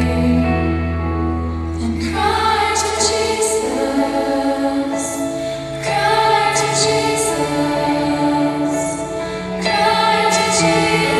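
Children's choir singing a slow Christian worship song with instrumental accompaniment, long held vocal notes over a bass line.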